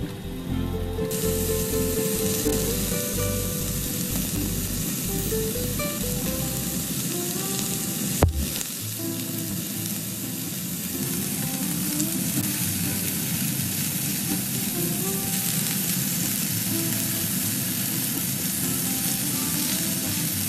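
Pork-belly rolls sizzling in a hot nonstick frying pan, with a steady hiss that starts about a second in as they hit the oil and are turned with chopsticks. There is a single sharp knock about eight seconds in.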